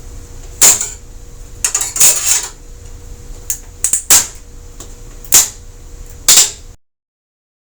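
A flat knife blade prying taped LED backlight strips off a TV's metal backlight panel: about six sharp metallic scrapes and clicks. The sound cuts off abruptly about a second before the end.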